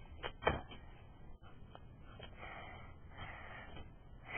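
A couple of soft clicks, then two faint breaths close to the microphone in a quiet room.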